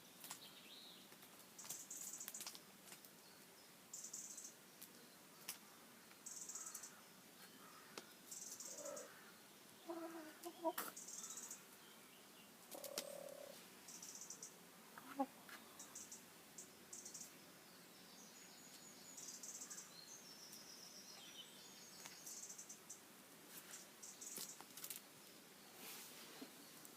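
Faint, high-pitched chirping that repeats every second or two, with a few soft, lower clucking calls from chickens around the middle.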